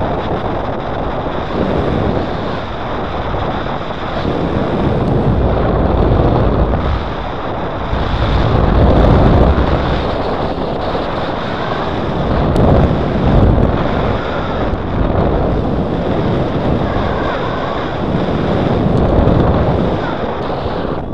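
Wind rushing over the camera microphone of a paraglider in flight, a loud steady roar of airflow that swells and eases in gusts, loudest about nine and thirteen seconds in.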